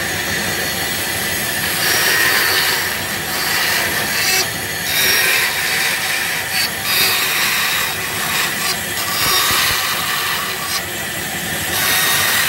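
Bandsaw cutting a thick plywood blank along a curved line: a steady, high-pitched cutting noise that swells and eases as the wood is fed into the blade, with a few brief dips.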